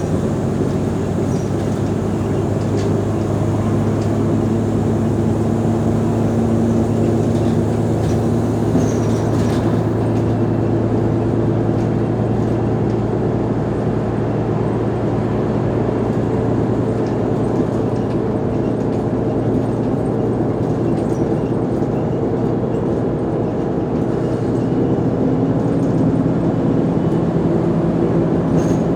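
Mercedes-Benz O345 Conecto G articulated bus's diesel engine running steadily while the bus is under way, a low drone whose pitch shifts a little now and then.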